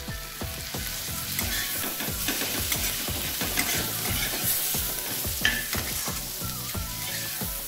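Chopped onions with turmeric and ginger paste sizzling in hot mustard oil, with a spatula repeatedly stirring and scraping the pan.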